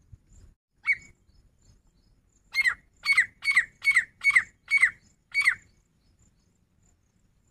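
Grey francolin calling: a single call, then a run of seven loud calls at about two a second.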